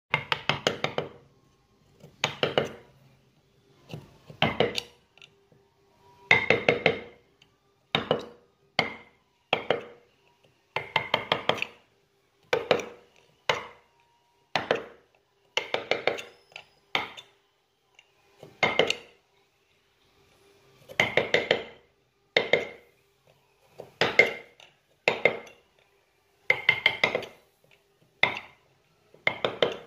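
Wood-carving chisel struck with a mallet while cutting into a wooden relief panel: quick bursts of light taps, three to six per burst, repeating every second or two.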